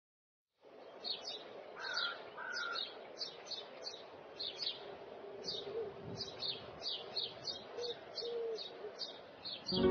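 Birds chirping: a steady run of short, high chirps, several a second, with a couple of lower two-note calls about two seconds in, over a faint outdoor background.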